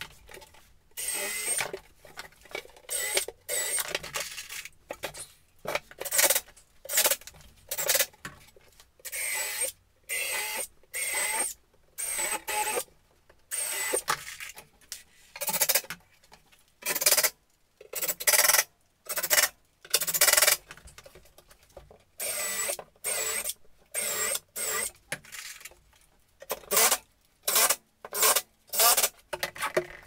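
Cordless drill/driver driving screws into the wooden panels of a seat box, run in many short bursts of under a second each with brief pauses between, some with a thin high whine.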